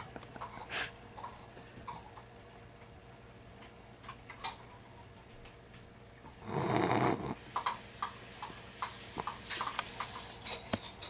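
Two cats play-fighting on carpet: scattered soft taps and scuffles. About six and a half seconds in comes a short breathy rasp, less than a second long.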